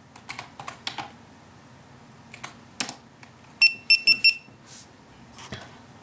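Computer keyboard keys clicking as a command is typed, then a quick run of four short high beeps, about three and a half seconds in, from the GoPro Hero2 camera answering the command to start recording video.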